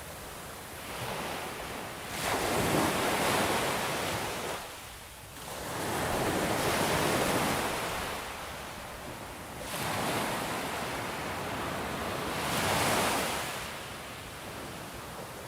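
Ocean surf on a shore: waves breaking and washing up in a series of rushing swells that rise and fall every few seconds, with some wind on the microphone.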